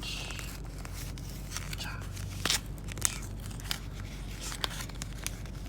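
Crinkling and tearing of a trading-card booster pack's wrapper being torn open by hand, with sharper crackles about two and a half and three seconds in.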